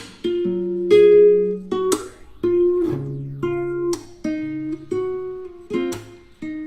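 Background music: gentle acoustic guitar plucking a slow melody, one note at a time.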